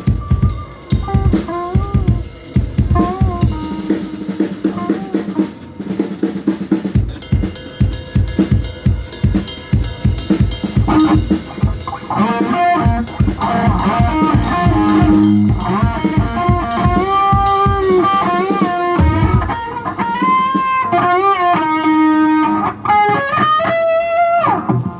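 Live rock band playing: a drum kit with kick and snare keeping a steady driving beat, guitar over it, and a lead melody with pitch bends and vibrato.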